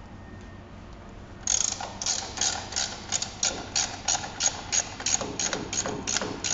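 Ratchet socket wrench clicking as it is worked back and forth on the axle nut of an electric scooter's rear hub motor. It is an even run of sharp clicks, about three a second, starting about a second and a half in.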